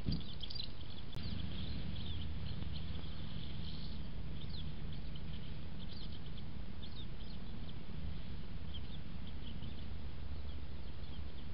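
Small birds chirping, many short high calls coming in scattered runs, over a steady low rumble from the trail camera's microphone.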